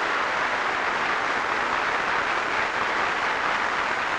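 A large crowd applauding steadily, the dense clapping of many hands.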